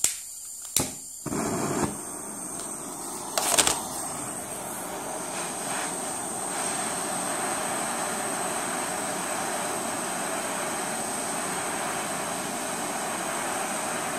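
Small handheld gas torch being lit and run: two sharp clicks, gas hissing, and a louder burst a few seconds in as it catches. It then settles into a steady flame hiss, heating a tool-steel cam toward red heat for flame hardening.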